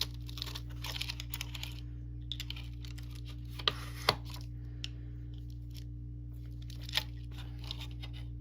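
Metal lamination plates of a padlock being worked along the shackle: light scraping and a scatter of sharp metallic clicks, two close together about halfway and another near the end, over a steady low hum.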